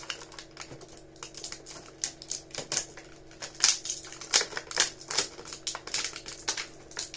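Clear plastic toy packaging being handled, giving irregular crinkles, rustles and light clicks.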